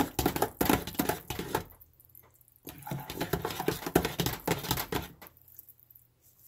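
Stick blender mixing soap batter of oils and lye water in a ceramic crock pot insert, run in two short bursts with rattling and clicking against the pot; it stops about five seconds in.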